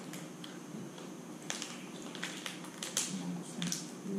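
A small plastic wrapper being handled and picked open by hand, crinkling with a run of irregular sharp crackles and clicks.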